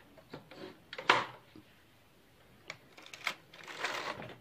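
Passap double-bed knitting machine: a sharp clack about a second in and a few lighter clicks as the lock is handled, then a rattling scrape near the end as the lock slides across the needle beds, knitting a row.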